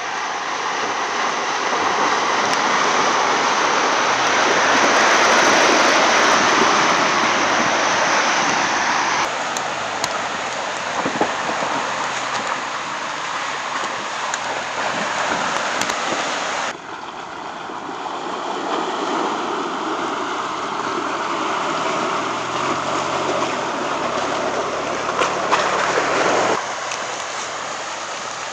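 Ford Bronco Everglades SUV driving through a flooded mud trail in the rain: a steady rush of splashing water and rain, changing abruptly about nine and seventeen seconds in. Later, a low note from its 2.3-litre four-cylinder engine comes through, rising in steps before cutting off near the end.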